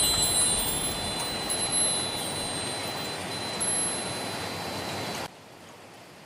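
Steady rain falling, with a thin, high, steady ringing tone over it. About five seconds in, the rain drops suddenly to a much quieter, softer rain.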